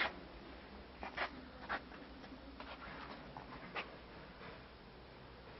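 A few faint, sharp clicks and taps over a low steady hum, clustered about a second in and again near four seconds.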